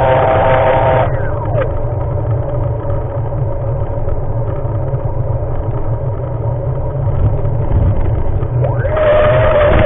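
Steady low rumble of wind and riding noise on a moving action camera's microphone, with a faint steady hum.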